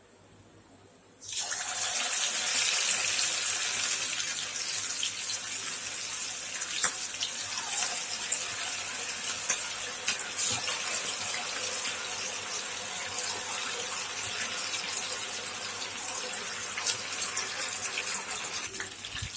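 Chicken 65 pieces in a cornflour-and-curd marinade going into hot oil in a kadai: the oil breaks into a loud sizzle about a second in, then keeps sizzling steadily with many small crackles as the pieces deep-fry.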